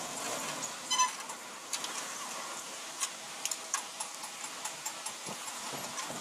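Hand tool clicking and tapping against motorcycle engine parts: a sharp metallic clink about a second in, then scattered light ticks over a steady background hiss.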